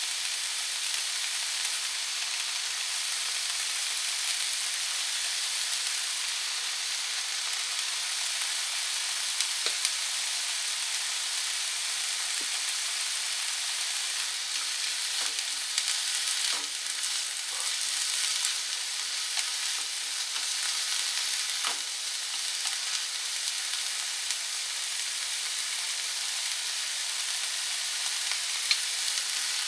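Green peppers sizzling as they are stir-fried in a frying pan: a steady frying hiss, with a few light clicks of the utensil against the pan now and then.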